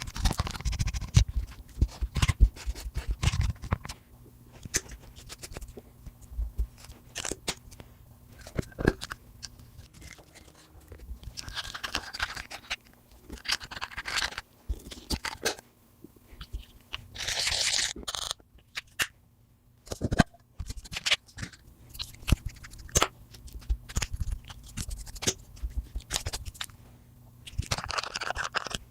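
Slime being pressed, stretched and folded by hand as lipstick is mixed in: a run of sticky clicks and crackling pops, with a few longer scraping hisses.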